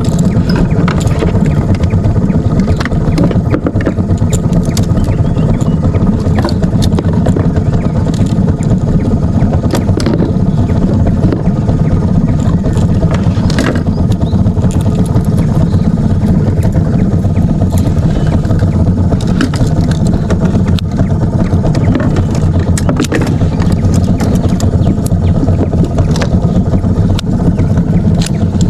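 Boat engine running steadily at a constant speed, a dense low hum with scattered clicks and knocks over it.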